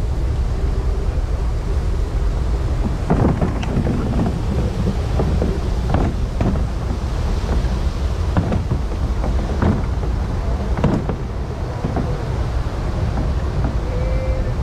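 Wind buffeting the camera microphone as a steady low rumble, with irregular splashes and knocks of canoe paddle strokes from about three seconds in until near the end.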